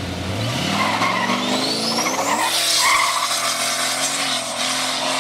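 Turbocharged LS2 V8 in a 1997 Holden Commodore VS ute accelerating hard. The revs climb steeply for about two seconds, with a rising turbo whistle, then hold at a high, fairly steady note. Bursts of tyre squeal come through the engine sound.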